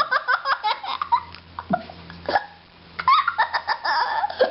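Baby laughing in short, high-pitched repeated bursts, pausing about halfway through and then laughing again.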